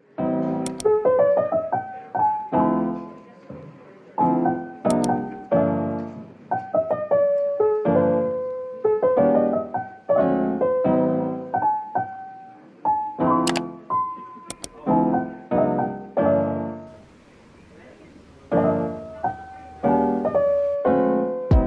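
Background piano music: a gentle run of single notes and chords, each struck and fading away. It drops back briefly about three-quarters through.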